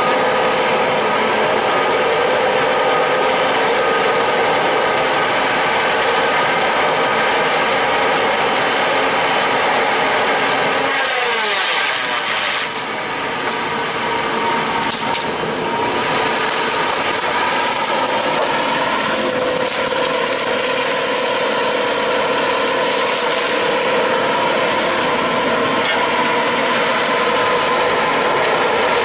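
Tracked feller buncher with a disc-saw felling head working: diesel engine, hydraulics and the spinning saw disc run steadily with a constant whine. About eleven seconds in, a falling sweep and a rush of hiss come as the saw cuts through a trunk.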